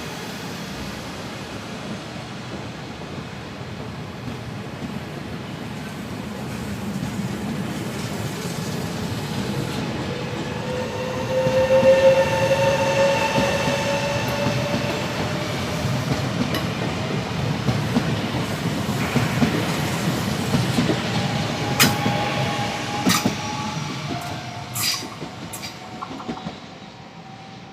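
Electric train passing through a station with a steady rumble of wheels on rail. A whine rises in pitch about a third of the way in, and a run of sharp wheel clacks over rail joints comes near the end as the sound fades.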